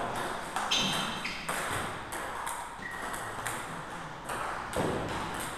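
Celluloid-type table tennis ball being struck by rubber-faced bats and bouncing on the table in a rally: irregular sharp clicks, about one or two a second.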